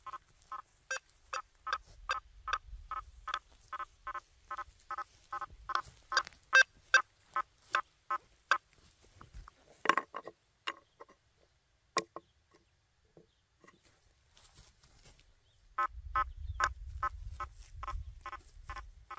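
Quest V80 metal detector giving rapid short tone beeps, about two to three a second, as its 9-inch search coil passes over a nailboard of targets. The beeping stops for a few seconds after about ten seconds, then starts again near the end, with a low rumble beneath it.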